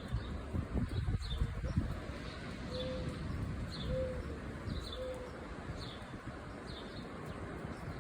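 A dove cooing three short notes about a second apart, over a small bird chirping steadily about once a second, with a low rumble underneath.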